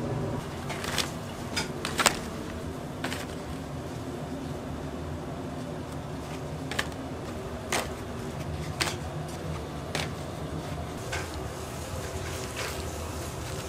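Steady mechanical hum of kitchen equipment with scattered sharp clicks and knocks of utensils and food prep being handled, the loudest knock about two seconds in.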